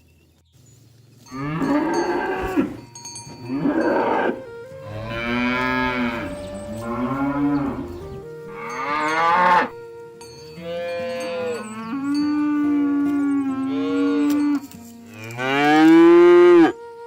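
Cattle mooing: about six long, drawn-out moos in a row, each rising then falling in pitch, the last one the loudest.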